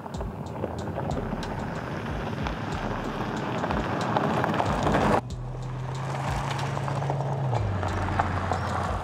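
Skoda Kodiaq RS tyres crunching over a gravel track, with stones popping and clicking, growing louder as the SUV comes close. After an abrupt cut about five seconds in, the steady low hum of its 2.0 TSI petrol engine joins the gravel noise and drops to a lower pitch a couple of seconds later.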